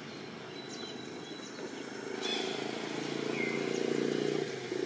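A motor vehicle's engine running in the background, growing louder about two seconds in, with a few faint short high chirps over it.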